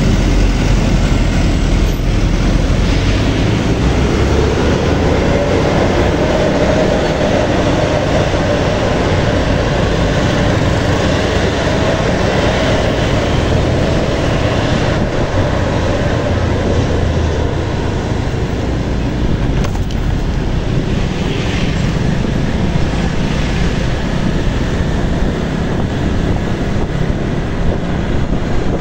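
Steady rumble of riding a motorcycle through city traffic: the bike's engine running under wind and road noise.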